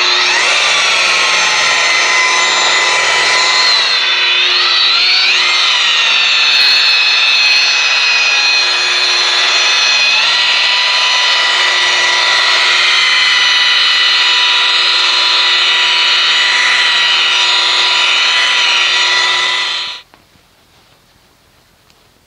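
Rotary polisher with a black foam pad running on a car's painted hood for the second, machine-polish stage of paint correction: a steady whine that dips and recovers in pitch a few seconds in, then cuts off suddenly near the end.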